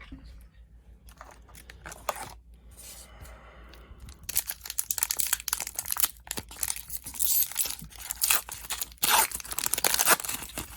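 A hockey card pack's wrapper being torn open and crinkled: a dense run of crackling rips from about four seconds in, after fainter rustling.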